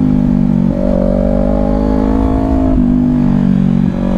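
Kawasaki Ninja 400 parallel-twin engine running under load through a bend, with wind rush on the microphone. The engine note breaks briefly about a second in and again near the end, then carries on at a slightly different pitch.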